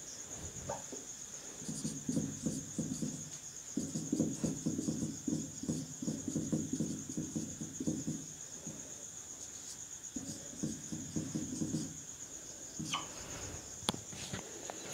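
Marker writing on a whiteboard: three stretches of short, scratchy strokes, about two, four and two seconds long. A steady high-pitched trill runs underneath.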